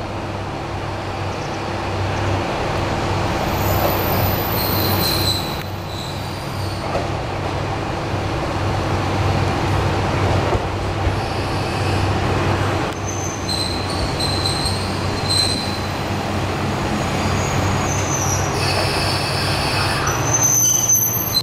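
Kanto Railway diesel railcar KiHa 2203 pulling into the station and braking to a stop. Its engine drones steadily and low. High-pitched brake and wheel squeals in several pitches come and go, strongest in the last few seconds as the car comes to a halt.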